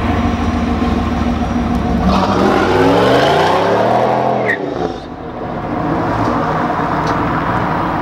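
Camaro V8 engine accelerating: its note runs steadily, then climbs in pitch for about two and a half seconds. It falls away sharply about four and a half seconds in and then runs on steadily.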